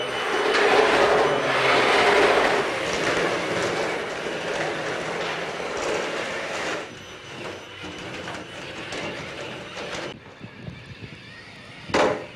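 Tracked iRobot PackBot robot driving on a concrete floor: a dense, clattering mechanical rattle from its tracks and drive. It is loudest over the first half, eases after about seven seconds, and a brief loud burst comes near the end.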